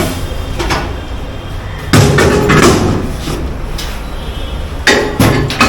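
A loud bang about two seconds in, ringing on briefly, then three sharp knocks in quick succession near the end, over a steady low workshop hum: the clatter of tyre and wheel work in a tyre shop.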